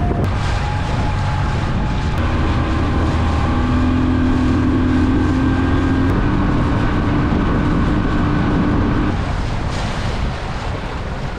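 Outboard motor running at speed, driving a jon boat across the lake, with water rushing along the hull and wind on the microphone. The engine note fades near the end as the boat slows.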